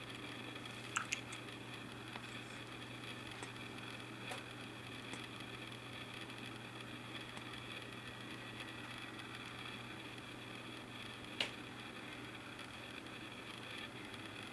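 Quiet room tone: a steady low hum with a few faint short clicks, two close together about a second in and a sharper one later on.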